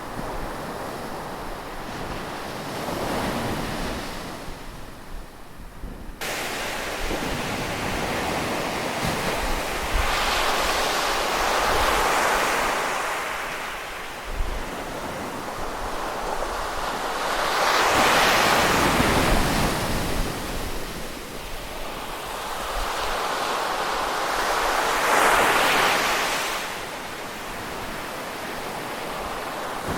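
Ocean waves breaking and washing in, a steady rush that swells and fades in surges every six to eight seconds.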